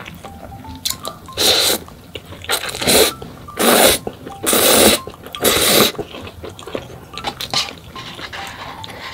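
Slurping instant noodles: a run of about six loud, hissy slurps in the middle, with quieter mouth sounds around them.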